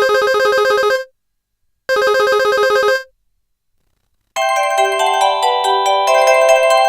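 Samsung SPH-A560 ringtones played on a Nokia 215 phone's speaker. First come two one-second bursts of a fast, repeating electronic ring pattern with a short pause between them. After a brief silence, a new melodic ringtone of many quick notes starts about four and a half seconds in.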